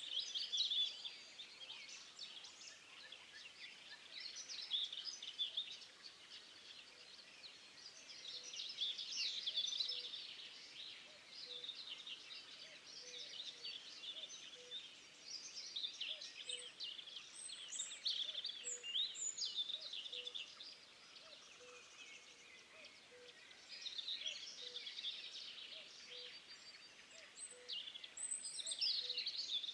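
Birds chirping and twittering, many short calls overlapping in waves that swell every few seconds.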